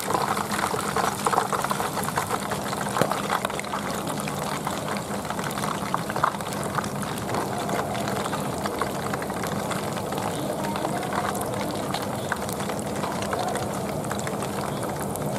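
Hot cooking oil sizzling steadily around a whole catfish deep-frying in a wok, with a constant patter of small crackles.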